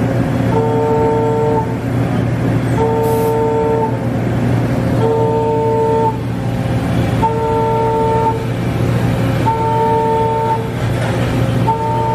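An electronic warning beeper sounds a two-pitch tone for about a second at a time, repeating roughly every two seconds, over a steady low machine hum.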